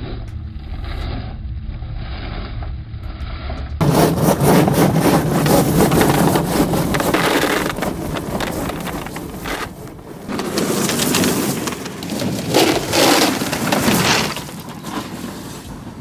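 Sinclair C5 with an upgraded electric motor driving off over rough ground: a low rumble, then from about four seconds in loud crunching and scraping from the wheels, dipping briefly near ten seconds. Only one rear wheel is driven, so the trike has little traction and slides sideways as it goes.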